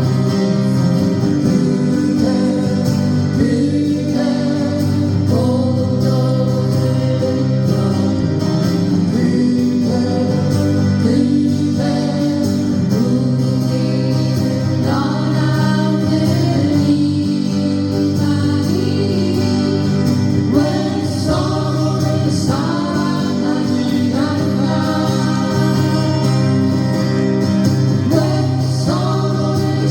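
A song performed live: several voices singing together over strummed acoustic guitars.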